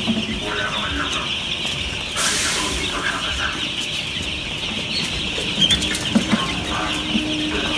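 A large flock of four-day-old broiler chicks peeping continuously, a dense chorus of high peeps.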